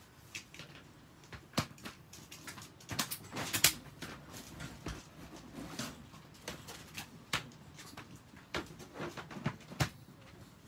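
Disposable pet toilet sheets crinkling and a plastic dog-toilet tray clacking as they are handled: a string of irregular sharp rustles and knocks, busiest a couple of seconds in and again near the end.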